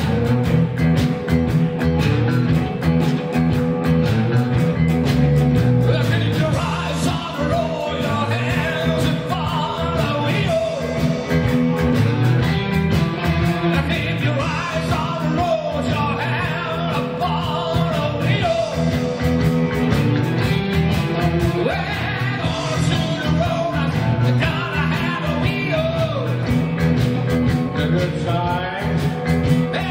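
Live rock band playing electric guitars and a drum kit, coming in all at once at the start, with a man singing over it.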